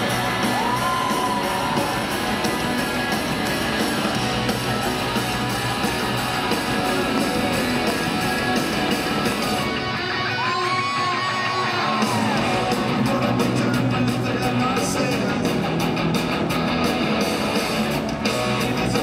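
Live rock band playing at full volume, led by loud distorted electric guitars over bass and drums, recorded from the arena audience. The top end thins out for about two seconds midway.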